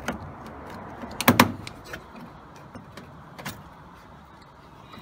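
Pliers and plastic parts clicking and knocking as hands work inside a washing machine around the drain pump: a few separate sharp clicks, the loudest a double knock about a second and a half in.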